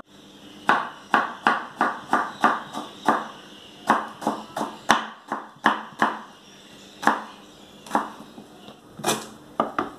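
A kitchen knife slicing through a raw Thai eggplant and tapping onto a wooden cutting board, in a steady rhythm of about two to three strokes a second.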